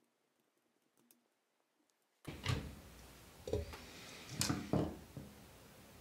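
Near silence for about two seconds, then a handful of light, sharp clicks and taps as a plastic wall outlet and its copper wires are handled.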